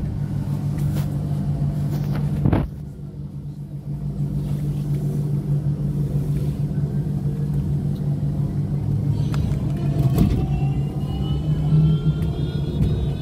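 Running noise inside a KAMAZ-6282 electric bus under way: a steady low hum, with a sharp knock about two and a half seconds in. From about nine seconds a high electric traction-motor whine rises steadily in pitch as the bus picks up speed.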